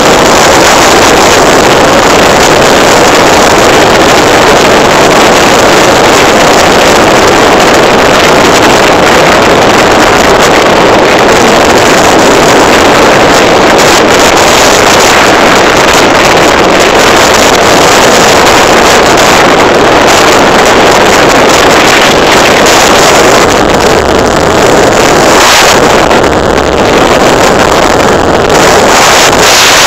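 Riding noise on a moving motorcycle: wind blasting the phone's microphone, loud and distorted, over the motorcycle's engine running steadily.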